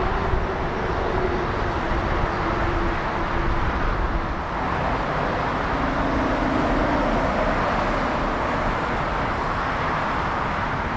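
Jet airliner engines running, a steady rush and low rumble with faint hums that shift in pitch about halfway through.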